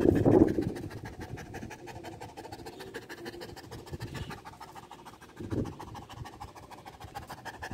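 Saint Bernard panting fast with its mouth open, close to the microphone, mixed with scratchy rubbing noise; a louder bump right at the start and a smaller one about five and a half seconds in.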